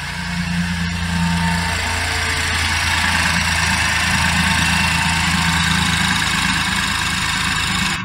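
BMW 116i (F20) engine idling steadily with the bonnet open, running smoothly without its earlier rattle now that the valve cover seals and Vanos solenoid valve have been replaced. The sound cuts off suddenly at the end.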